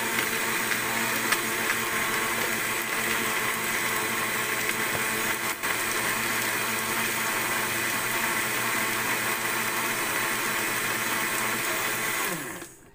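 Electric countertop blender running steadily at full speed, blending mango into juice. It is switched off about twelve seconds in, and the motor winds down with a falling pitch.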